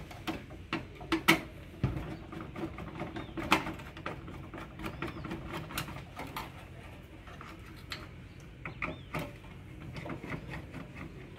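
Irregular light clicks and knocks of a screwdriver and hands working on the metal and plastic parts of a gas water heater's pilot and ignition assembly, with a faint steady hum underneath.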